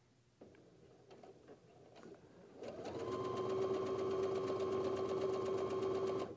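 Electric sewing machine stitching a seam through fabric while chain piecing. It starts about two and a half seconds in and runs at a steady speed, a constant hum with fast even needle strokes, then stops near the end. Before it there are a few faint handling sounds.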